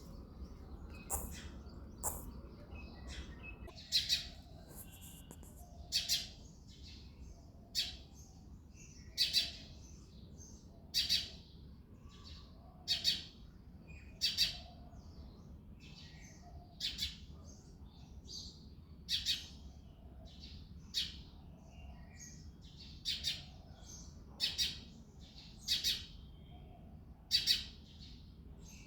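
Male house sparrow chirping: short, sharp chirps repeated every second or two, some coming in quick pairs.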